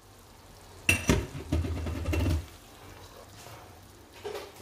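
Wooden spoon stirring capers into sauce in a non-stick frying pan, with one sharp knock about a second in and a low rumble of handling for a second or so after it.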